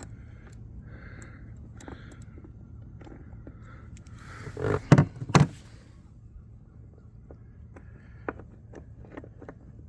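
Light clicks and taps over a steady low rumble, then, about five seconds in, a short scrape followed by two loud thuds about half a second apart.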